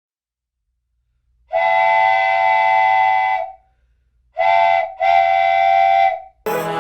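Darjeeling Himalayan Railway toy train's whistle sounding three blasts: one long, one short, one long.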